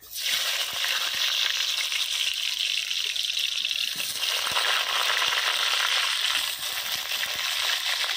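Chunks of raw potato dropped into hot oil in a kadai, the oil starting to sizzle loudly all at once and then sizzling steadily with fine crackling as the potatoes fry.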